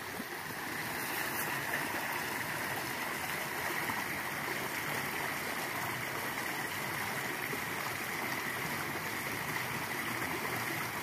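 A small stream running steadily over a shallow riffle: an even, unbroken rushing of water.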